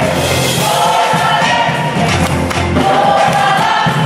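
A large mixed high school choir singing an upbeat gospel praise song in a Caribbean style, backed by a drum kit with a steady beat.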